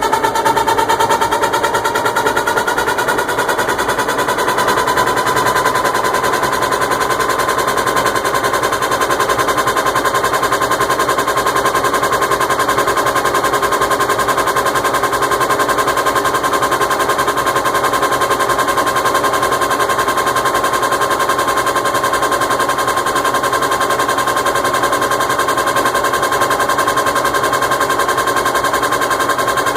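GE washing machine running loudly, most likely spinning, with a motor whine that rises in pitch over the first several seconds and then holds steady, over a fast, continuous rattling. The noise persists even though several parts have already been replaced, and the owner takes it for an unresolved fault.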